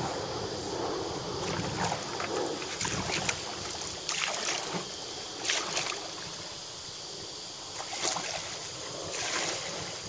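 Canoe paddle strokes: a wooden paddle dipping and splashing in calm river water, a splash about every second with a short pause in the middle.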